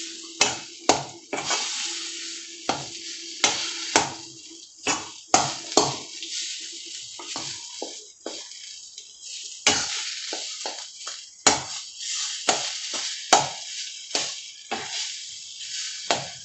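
Metal spatula scraping and clanking against an iron kadhai as thick besan zunka is stirred and turned, with irregular sharp knocks about once or twice a second over a light sizzle.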